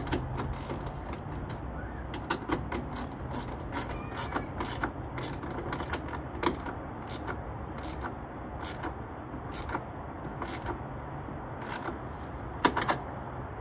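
Hand ratchet wrench clicking in short, irregular strokes while a bolt is driven in.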